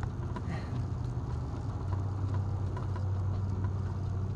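Golf cart being driven slowly, its drive giving a steady low drone over tyre and wind noise, with a few faint ticks and rattles.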